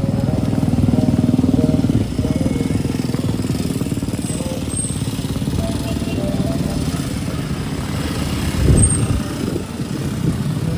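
Steady low rumble of typhoon wind and heavy rain on a city street, with a brief louder thump about nine seconds in.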